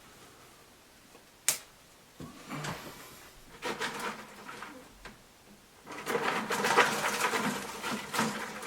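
Dogwood twigs rustling and scraping against one another as they are bent and twisted around a twig ring, with a single sharp click about a second and a half in and a denser, crackly run of rustling near the end.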